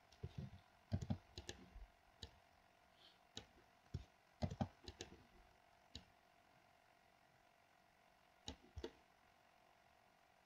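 Faint, irregular clicks of a computer mouse and keyboard keys, bunched together through the first six seconds, then two more clicks a few seconds later.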